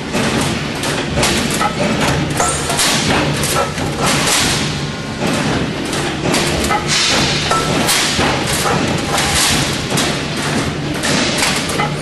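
Cable tray roll forming machine running, its punching press station striking the steel strip with repeated heavy thumps over a steady motor hum.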